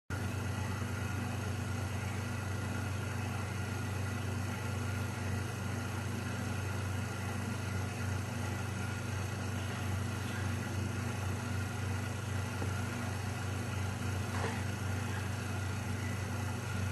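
A steady low hum with an even hiss over it, starting abruptly out of silence and holding unchanged.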